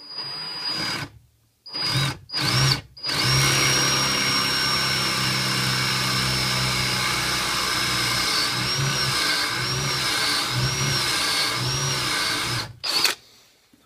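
Power drill boring a countersink into very hard wood with a Forstner bit: a few short trigger bursts, then about ten seconds of steady running with a high motor whine. In the second half the motor's pitch dips and recovers about once a second as the bit cuts, and it stops near the end.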